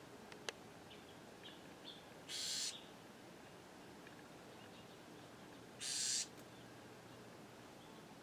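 Bewick's wren giving two harsh, raspy buzz calls a few seconds apart, its scold at an intruder near its nest.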